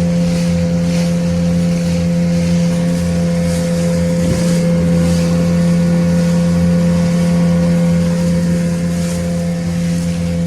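Engine of a small motorboat running at a steady cruising speed, an even hum that holds the same pitch throughout, with a hiss of wind and water over it.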